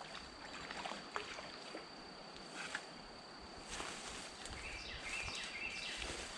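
Quiet creek-bank ambience: a steady high-pitched insect hum with a few faint clicks and rustles, and a short chirping call about five seconds in.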